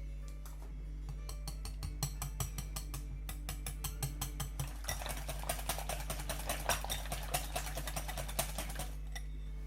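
A metal kitchen utensil clinking rapidly and evenly against a bowl or pan, about four or five strokes a second, getting louder and busier about halfway through, over quiet background music.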